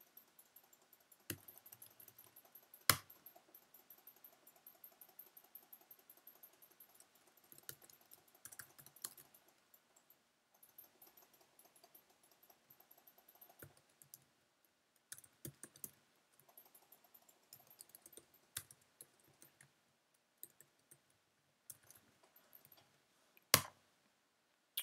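Computer keyboard typing, faint and irregular key clicks with pauses, broken by a few sharper, louder single key strikes, the loudest about 3 seconds in and near the end.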